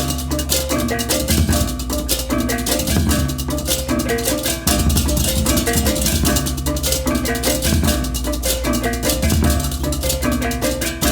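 Balinese baleganjur gamelan playing at full volume: dense, fast clashing of many ceng-ceng cymbals over kendang drums, with the riong kettle gongs' repeated pitched figures and the deep strokes of the large gongs underneath.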